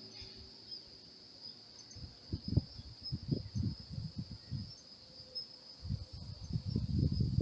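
Steady high-pitched chirring of insects, with irregular bursts of low rumbling noise through the second half.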